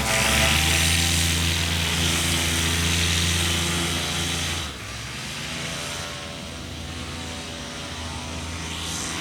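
Paramotor engine and propeller running steadily in flight, with wind rush across the microphone. The sound drops in level and thins out about halfway through.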